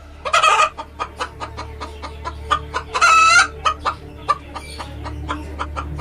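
Domestic chickens clucking in a quick run of short notes, with two louder squawks, one just after the start and one about three seconds in.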